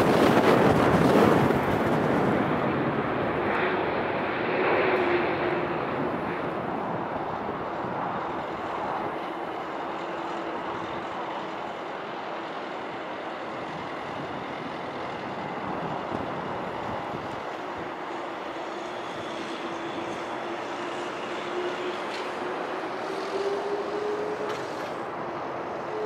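Jet airliner engines heard from the airport side: a loud rushing noise for the first couple of seconds that settles to a steady lower rush, with a faint engine whine running through it that rises slightly in pitch near the end.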